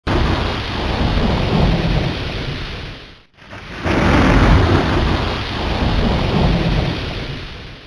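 Thunderstorm sound effect: thunder rumbling over heavy rain. A rumble starts suddenly and dies away after about three seconds, then a second one swells up and slowly fades near the end.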